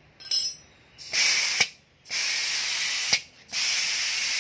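Iwata WA-101 automatic spray gun being test-fired after repair, releasing compressed air in hissing bursts. A short puff with a faint whistle comes first, then three longer blasts of about half a second, a second and a second, each cut off with a sharp click as the gun shuts.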